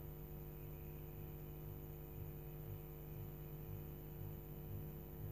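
Faint, steady low electrical hum with a slow pulsing about twice a second: the recording's background hum between narrated lines.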